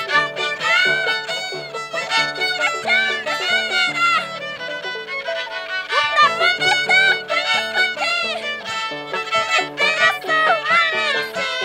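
Instrumental break of Andean folk music: a violin plays the melody with vibrato over the bass notes of a plucked Andean harp.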